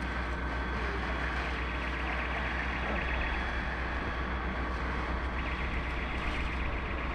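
Steady low rumble of a fire engine's engine driving its pump, with the hiss of hose jets spraying water onto the fire.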